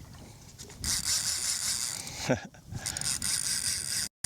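A spinning reel's drag clicking in two rapid spells of about a second each as a hooked redfish pulls line. The sound cuts off abruptly near the end.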